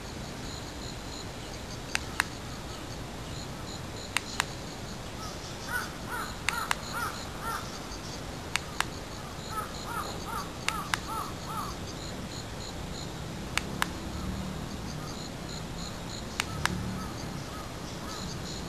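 Two runs of short, quickly repeated animal calls, about a second and a half each, over a steady hiss. Sharp clicks, mostly in pairs, come every couple of seconds and are the loudest sounds.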